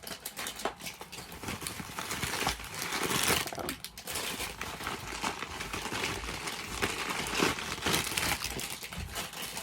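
Packaging crinkling and rustling as it is handled and items are pulled out of a parcel, an uneven crackle throughout.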